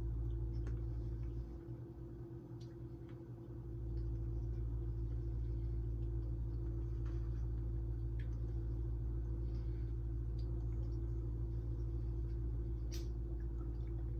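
A steady low electrical hum from a kitchen appliance, with several even tones. It dips for a couple of seconds about one and a half seconds in. A few faint clicks of a metal spoon against a bowl come over it, the clearest near the end.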